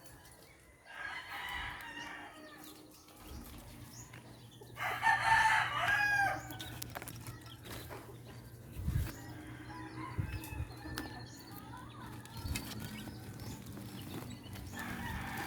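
A rooster crowing twice; the second, louder crow comes about five seconds in.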